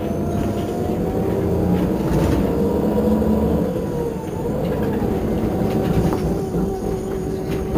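Irisbus Crossway coach's diesel engine idling while stationary: a steady rumble with a whine that drops slightly in pitch about halfway through.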